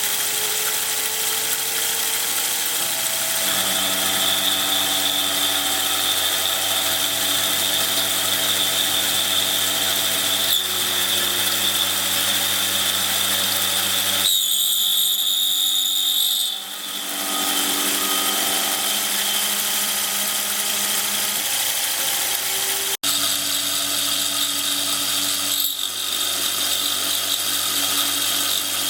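A CNC-converted Sieg X2-type benchtop milling machine runs a milling job: the spindle and cutter give a steady high hiss while the axis drive motors whine in steady tones. The tones shift in pitch several times as the feed moves change.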